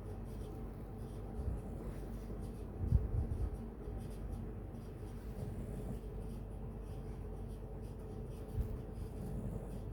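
Soft snoring in sleep: a low, rough snore about three seconds in and a shorter one near the end, over a steady low hum.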